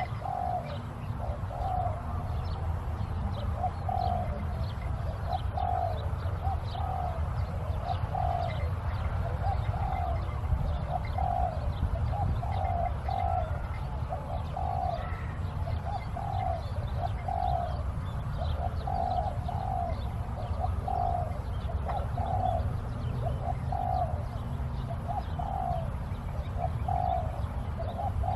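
Spotted dove cooing over and over, a steady run of short, low coo notes a little more than one a second; it is the call used to lure wild doves to a trap.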